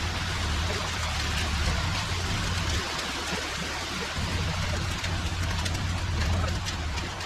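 Steady low engine hum under a loud, even rushing hiss. The hum drops away for about a second around three seconds in.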